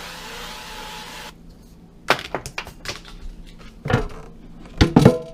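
Cooking oil hissing out of a spray can for about a second, stopping suddenly. Then a run of clicks and knocks, the loudest near the end, from the air fryer basket being handled.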